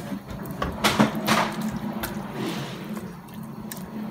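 Water being run and poured for the cooking pot, with a few sharp knocks of a cup or utensil about a second in, over a steady low hum.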